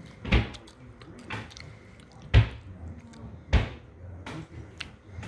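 Drawers of a dresser being opened and pushed shut: three loud knocks, about two seconds and then one second apart, among lighter clicks and rummaging.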